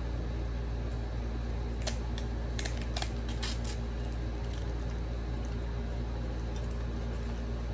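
A few sharp crinkles and clicks of a plastic sweet and sour sauce packet being peeled open, clustered about two to three and a half seconds in, over a steady low hum.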